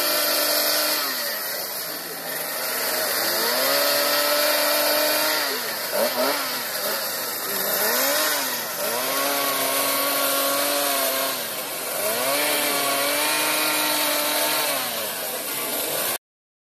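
Two-stroke chainsaw carving wood, revving up and down over and over: it holds high for a second or a few at a time, then drops back before opening up again.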